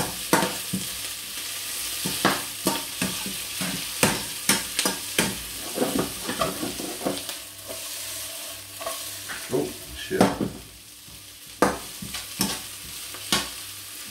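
Spatula stirring chopped onions frying in olive oil in a pan: repeated scrapes and taps of the spatula over a steady sizzle, with a short lull about ten seconds in.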